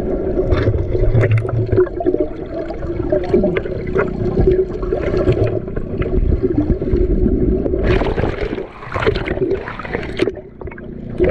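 Seawater sloshing and splashing against a small boat, over a steady engine drone; the splashing grows louder about eight seconds in.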